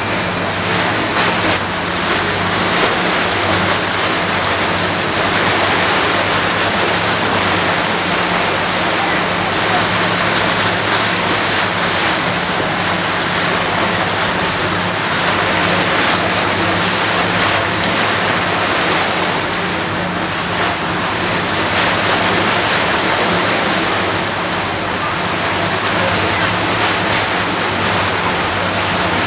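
Steady rush of wind and water on a boat under way, with the low, even hum of its engine underneath.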